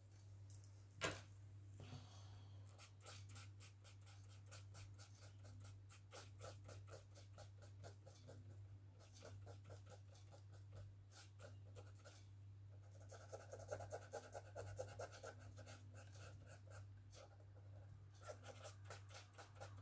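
Faint scratching of a black marker on sketchbook paper in many quick, short strokes as an area is coloured in, busiest a little past the middle. A single sharp click about a second in, over a steady low hum.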